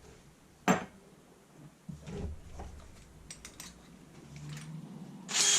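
Tools being handled on a workbench: a sharp knock, a few dull thuds and quick clicks, then a short loud scrape near the end.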